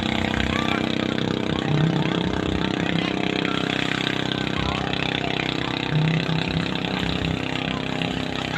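A small boat engine running at a steady, even drone, with faint voices of people in the water.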